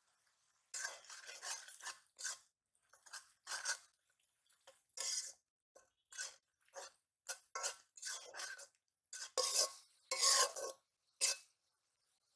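Flat metal spatula scraping and stirring in a metal karahi, a dozen or so quick, irregular strokes starting about a second in, as onions, green chilies and ground spices are mixed in the pan.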